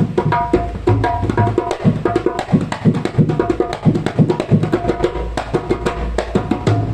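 Dholak played solo by hand: a fast, dense run of strokes mixing deep bass tones with ringing higher-pitched strokes.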